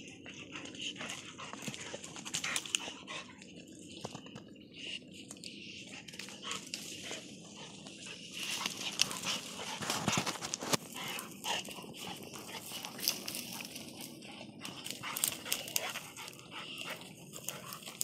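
Two mastiffs play-fighting, their dog noises mixed with the rustling and crackling of dry twigs and brush, busiest about halfway through.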